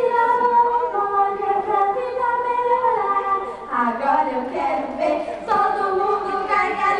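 Children's choir singing a melody in long held notes.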